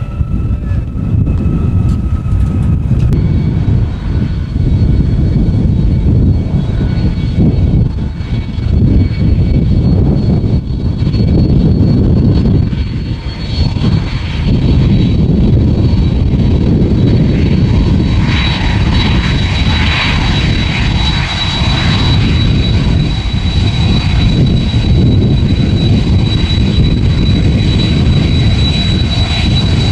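Boeing 767 freighter's twin jet engines running at taxi power over a low rumble, with a steady high whine that grows much stronger about two-thirds of the way through as the jet turns nose-on.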